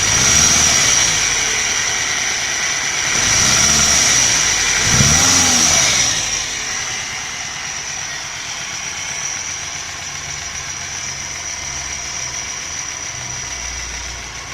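Nissan NP200 engine revved briefly three times in the first six seconds, then settling to a steady idle. A constant high-pitched tone runs throughout. This is the bad engine noise that replacing one pulley in the belt drive has not cured.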